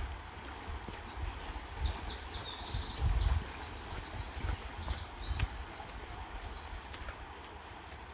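Songbirds singing quick runs of high repeated notes and trills over the steady rush of a fast-flowing river, with a few low thumps.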